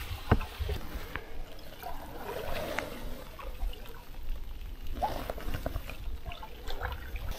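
Water trickling and gurgling off a canoe paddle, with small splashes as it is worked through the water. There is a sharp knock about a third of a second in and light ticks scattered through.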